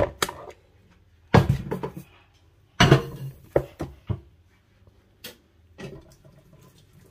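Corn dough being worked in a plastic bowl with a wooden spatula: a series of irregular knocks and thuds, some in quick clusters, as the spatula strikes and presses through the dough against the bowl.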